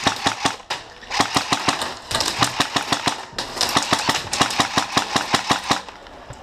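Airsoft rifle firing on full auto in three bursts of rapid shots, roughly a dozen a second, with short breaks about a second in and near the middle. The firing stops shortly before the end.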